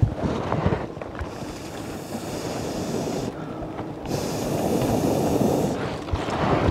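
Wind buffeting the microphone, with a bundle of grass rustling close by. A higher hiss sets in and drops out twice.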